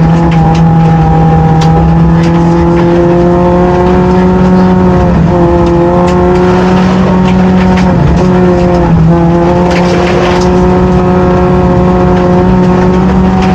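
A 2008 Honda Fit rally car's four-cylinder engine running hard, heard from inside the cabin. Its note holds steady but dips briefly about four times as the driver shifts or lifts. Gravel ticks and rattles against the car throughout.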